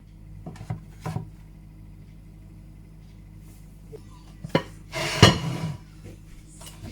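Dishes and cutlery clinking and clattering as they are handled: a few light knocks in the first second, another near the middle, then a louder clatter about five seconds in.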